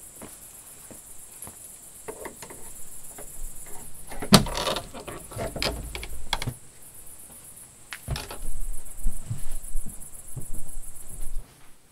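Scattered clicks and knocks, the loudest about four seconds in, over a steady high chirring of crickets that stops abruptly near the end.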